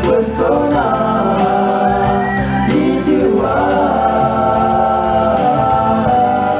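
Nasyid vocal group singing in harmony, a lead voice gliding up and down over sustained backing voices, with an evenly repeating percussion beat.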